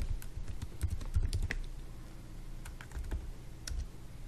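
Typing on a computer keyboard: irregular clusters of key clicks, with a busy run in the first second and a half and another about three seconds in.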